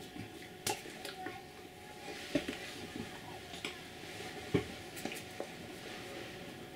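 Hands tapping and brushing against each other and against clothing while signing: a scattered string of sharp taps over soft rustling.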